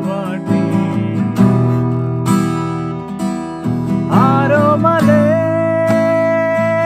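A man singing to his own strummed acoustic guitar, the chords struck every second or so. About four seconds in his voice slides up and settles into one long held note.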